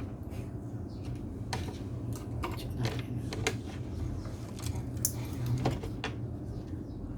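Scattered light clicks and taps of small parts and tools being handled during repair work, over a steady low hum.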